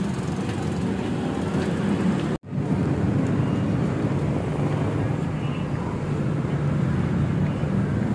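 Steady street traffic rumble of passing cars and motorcycles, broken by a split-second gap about two and a half seconds in.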